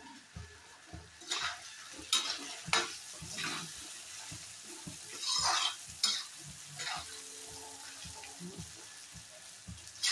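A perforated metal spatula scrapes the bottom of an iron kadhai in irregular strokes as it stirs pieces of taro root frying in oil, with a sizzle underneath.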